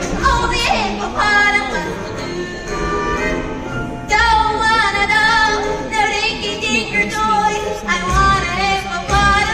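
A choir sings with instrumental accompaniment: voices hold and slide between sustained notes.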